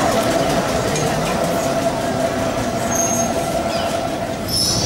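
Vintage Porto electric tram, with its original trucks and electrical equipment, running along street track: a steady whine over the rumble of wheels on the rails, with a short high squeal near the end.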